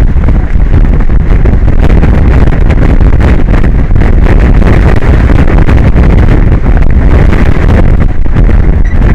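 Strong wind buffeting the microphone: a loud, steady rumble that flutters unevenly throughout.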